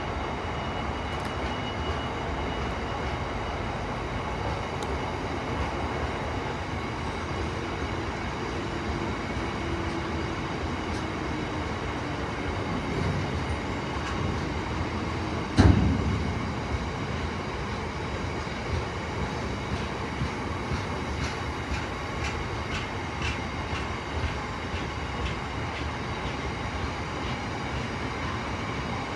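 Long freight train of open box wagons rolling past: a steady rumble of steel wheels on rail, with a faint squeal that falls in pitch about a third of the way through. One loud bang about halfway, then a run of quick wheel clicks over rail joints.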